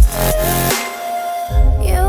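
Background electronic dance music: a kick drum on the first beat and held synth notes, with a heavy bass line coming in about one and a half seconds in.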